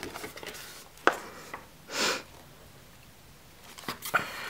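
Handling of a spiral-bound paper desk calendar: a single sharp tap about a second in and a short soft swish around two seconds. Near the end comes light rustling and clicking as a page is flipped over the spiral binding.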